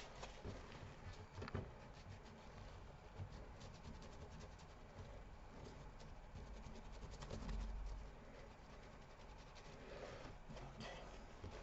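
Faint rubbing and scratching as hardened thermal paste is wiped off a laptop graphics chip with isopropyl alcohol, with a dull low bump about two-thirds of the way through.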